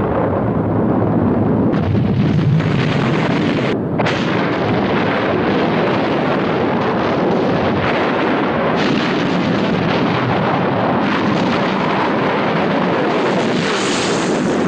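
Volcanic eruption: a loud, continuous din of overlapping explosive blasts and crackling, broken off briefly about four seconds in.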